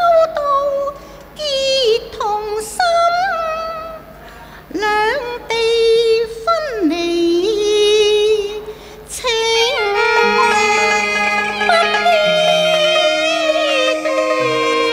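Cantonese opera music: long drawn-out melismatic phrases with sliding, wavering pitch, most likely a woman's singing voice, over a Chinese instrumental ensemble. From about ten seconds in, the accompaniment fills out with steady held string notes.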